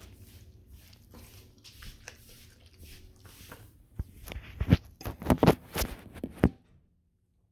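Irregular clicks and knocks of something being handled close to the microphone, faint at first and then a loud cluster about four to six and a half seconds in, after which the sound cuts off abruptly.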